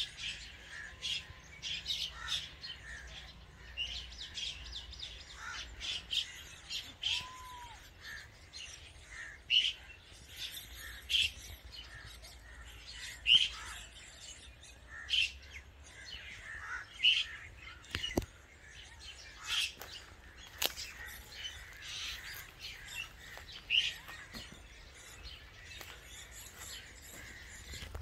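Birds chirping in the trees: a steady stream of short, sharp calls, with louder ones standing out every second or two.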